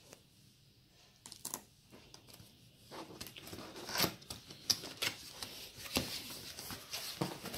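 Hands peeling a seal sticker off a cardboard lens box and pulling open its flaps: scattered scrapes, rustles and light knocks of cardboard, busier from about three seconds in.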